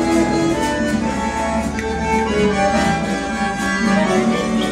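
A live band plays a continuous tune, with an accordion carrying the melody and guitar alongside.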